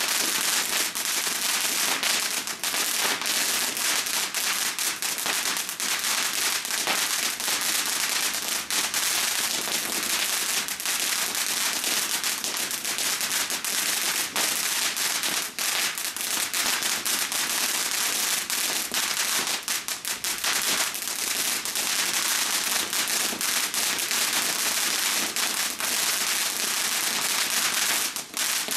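Ground fountain firework burning steadily, a continuous hiss of spraying sparks thick with rapid crackles.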